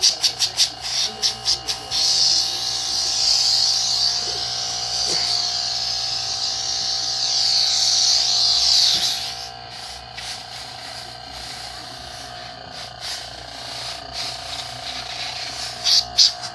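Refrigerator compressor used as an air compressor, running with a steady hum while compressed air hisses out of its outlet for about seven seconds and then stops suddenly. A rapid high pulsing, about four pulses a second, is heard at the start and again near the end.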